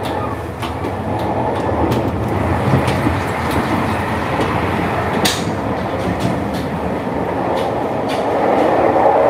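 JR Hokkaido limited express train running at speed, heard from inside as one walks between cars: a steady rumble and rattle with irregular sharp clicks from the wheels on the track, one sharper click about five seconds in, growing louder near the end.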